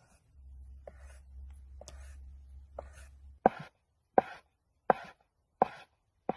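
A large chef's knife chopping through folded, floured dough on a cutting board. A few light knocks are followed by five sharp, evenly spaced chops, a little more than one a second.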